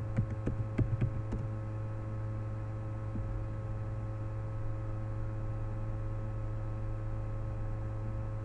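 A quick run of computer keyboard keystrokes, typing a password, ends about a second in. A steady electrical hum runs under it and carries on alone afterwards.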